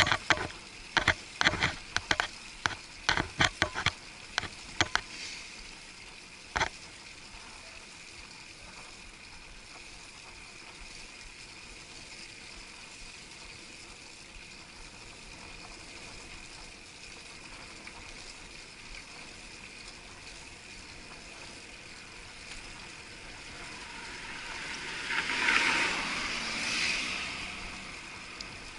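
Bicycle riding noise heard muffled through an action camera's waterproof housing: a quick run of sharp clicks and knocks for the first few seconds, then a steady hiss of wind and tyres on the road. Near the end a louder rush swells up and fades twice.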